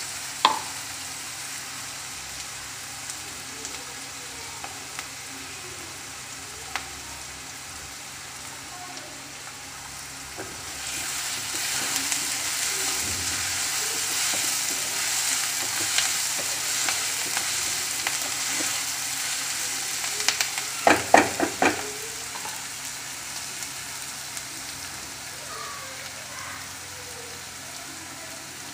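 Chopped onions sizzling as they sauté in oil in a non-stick pan, stirred with a wooden spatula. The sizzle grows louder for several seconds around the middle, and there is a quick run of knocks near the end.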